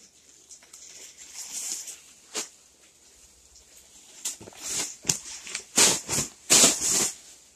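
Plastic snack bag crinkling and rustling as it is handled right by the microphone, with a single knock about two and a half seconds in and the loudest run of rustles over the last three seconds.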